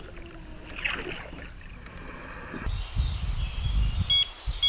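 Faint water and wind noise, then a steady low rumble of wind and flowing river water. Near the end an electronic carp/catfish bite alarm gives a short, high beep.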